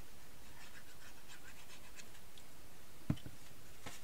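Faint scratching of a craft glue bottle's nozzle on card as glue is spread, with a sharp tap a little after three seconds in and a lighter one just before the end.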